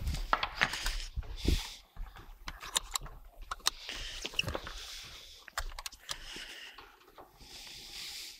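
Leather doctor's bag handled on a wooden crate: a couple of thumps as it is set down at the start, then its metal clasp clicking and rattling open among many small knocks, with rustling as a book is taken out.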